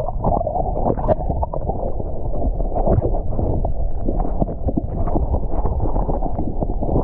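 Water sloshing and splashing around a swimmer's camera in its waterproof housing, a dense, muffled churning with many small uneven splashes.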